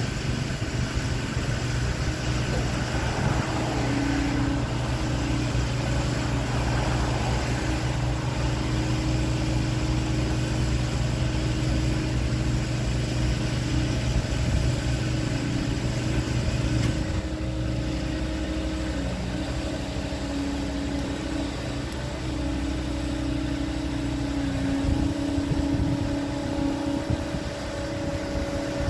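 Bobcat T66 compact track loader's diesel engine running steadily, its note changing a few times as the boom lifts a heavy strapped oak log.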